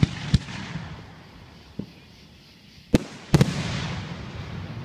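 Aerial firework shells bursting overhead with sharp bangs: one just after the start, a small pop, then two close together about three seconds in. Each bang is followed by a lingering hiss and crackle as the stars burn out.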